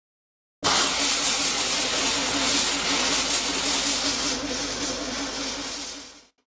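Burning fuse fizzing and hissing steadily as it throws sparks. It catches suddenly about half a second in, then fades and cuts off just before the end.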